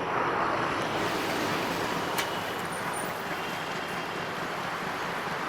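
Meter-gauge passenger train rolling past, a steady rumble of wheels and coaches, with a single sharp click about two seconds in.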